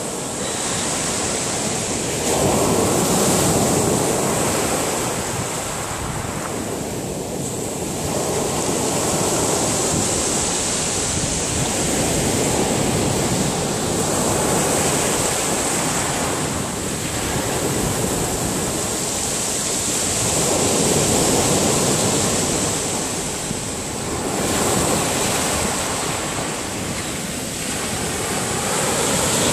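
Sea waves breaking and washing up a shingle beach of gravel and pebbles. The surf swells and eases about every five to six seconds.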